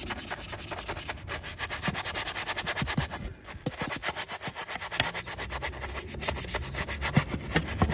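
Stiff-bristled wheel brush scrubbing the back of a wet, foam-covered alloy wheel in fast back-and-forth strokes, with a short pause a little over three seconds in.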